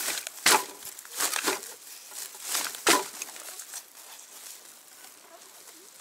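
Woven plastic sack rustling and crinkling as it is gripped and shifted, in several short scrunches over the first three seconds, then quieter.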